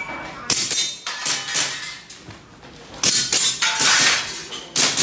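A shot timer's start beep cuts off at the very start, then an airsoft pistol fires strings of quick sharp shots, several a second, with a denser run about three seconds in.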